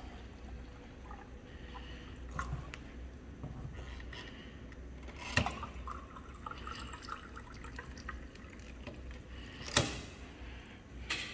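Water running from a water purifier's tap into a plastic bottle as it fills. Two sharp clicks: one about halfway through and a louder one near the end.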